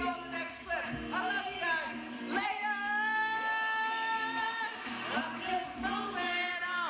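A male voice singing into a handheld microphone over backing music, holding one long note for about two seconds near the middle.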